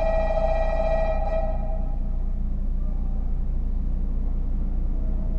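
An electronic platform bell rings a steady tone that cuts off about a second and a half in. Under it a Meitetsu train rumbles steadily as it pulls into the station.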